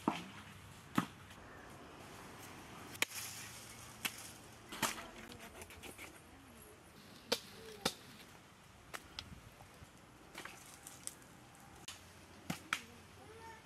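A dozen or more sharp knocks or chopping strikes at uneven intervals, over a low background hiss.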